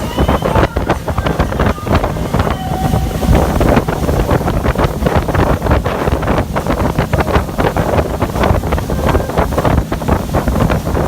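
Wind buffeting the microphone, loud and gusty, over the engine and hull noise of a speedboat running fast across open water.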